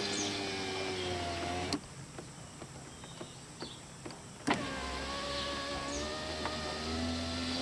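The newly installed power window motor and regulator of a 1995 Ford F-150 run the door glass. It hums steadily and stops with a click about two seconds in. After a short pause it clicks on again and runs smoothly to the end, the repaired window working properly.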